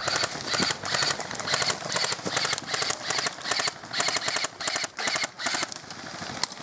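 Airsoft guns firing short full-auto bursts in quick succession, about two bursts a second, each a fast rattle of shots.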